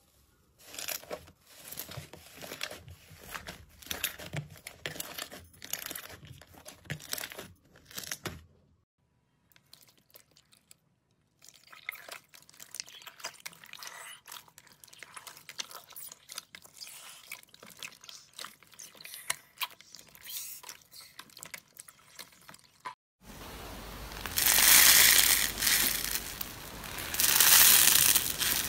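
Hands working crunchy blue foam slime in a plastic tub, a run of fine crackles and pops, then a short near-silent gap. Next comes wet squishing and crackling of jelly cubes squeezed in a tub of water. From about 23 s in, louder dense crackling and crunching as a yellow spongy slime is stretched and squeezed.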